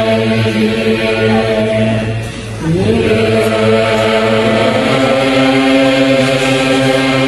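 A large assembly of Buddhist monks and laypeople chanting a prayer in unison on long, held notes. The voices break off briefly about two seconds in and come back with a rising swoop.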